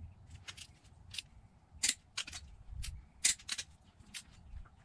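Steel hand tools being handled on the engine's cylinder head: a chrome deep socket and torque wrench clicking and clinking about ten times at uneven intervals, loudest about two and three seconds in.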